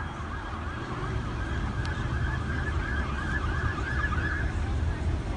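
Emergency vehicle siren in a fast yelp, its tone sweeping up and down about three times a second and clearest in the middle, over a steady low rumble.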